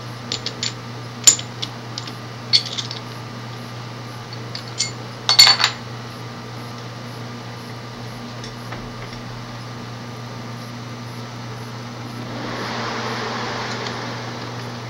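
Sharp metal clinks and clanks as a metal lathe's three-jaw chuck and workpiece are handled, loudest about a second in and again around five seconds in. About twelve seconds in the lathe starts and the spinning chuck adds a steady rush over a low hum.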